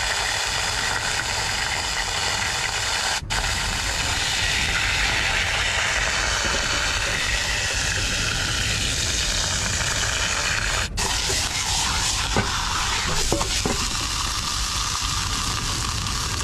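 Turbot sizzling steadily as it fries in hot oil in a small pot over a strong flame, with a steady low hum underneath. The sizzle breaks off briefly twice.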